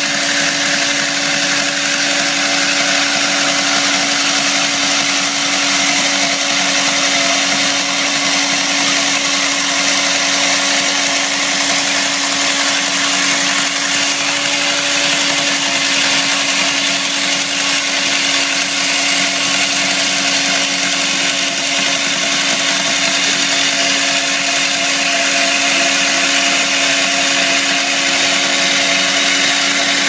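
Hydraulic diamond chainsaw cutting into a concrete block: a loud, steady grinding whine over a constant hum, unbroken throughout.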